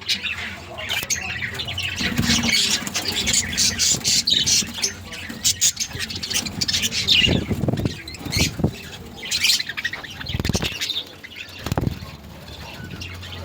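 A colony of budgerigars chattering and squawking continuously, a dense mix of chirps and clicks, with a few dull low thumps now and then.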